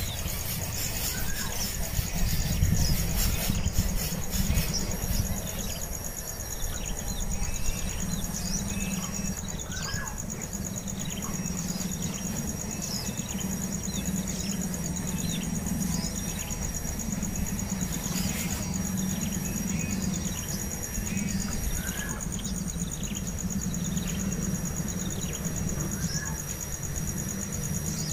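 Outdoor ambience: a steady high insect drone with a faster pulsing trill above it, short falling bird calls scattered throughout, and a steady low rumble underneath.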